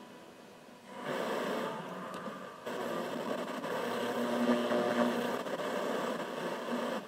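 Single-tube superregenerative FM receiver with a 6AK5 detector, giving out a steady rushing hiss as its tuning knob is turned across the FM broadcast band. The hiss comes in about a second in and steps louder near three seconds.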